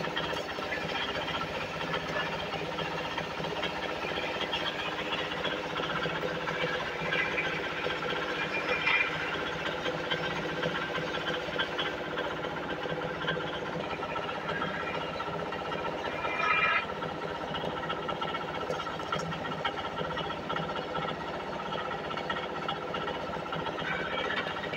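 Belt-driven wood lathe running steadily while a hand-held turning chisel scrapes and cuts a spinning wooden spindle. Two brief louder scrapes come about nine and sixteen seconds in.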